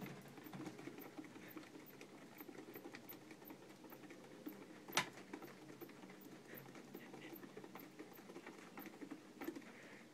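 A plastic exercise wheel spinning with a faint, steady patter as a flying squirrel runs on it, with one sharp click about five seconds in.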